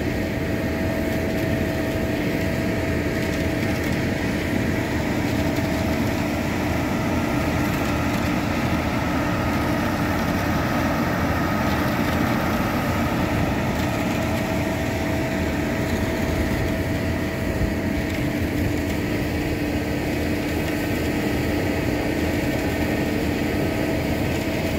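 Heavy diesel concrete-paving machinery running steadily: a Gomaco slip form paver extruding a concrete bunk with a ready-mix concrete truck alongside. The result is a constant engine drone with a couple of unchanging hum tones.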